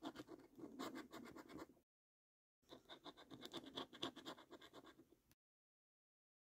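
A coin scratching the latex coating off a paper scratch card in quick, rapid strokes. It comes in two bursts with a short pause between them and stops about five seconds in.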